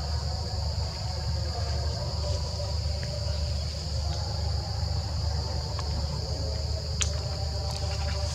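Steady chorus of insects, a continuous high buzz, over a constant low rumble, with a few faint clicks about seven seconds in.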